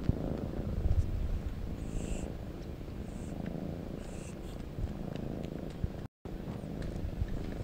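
Cats purring steadily and close up, a mother cat and her nursing kittens. The purring breaks off for an instant about six seconds in.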